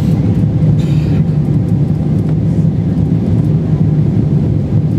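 Steady low roar inside the passenger cabin of a Boeing 777-300ER on its approach, the sound of its GE90-115B engines and the rushing airflow heard from a window seat.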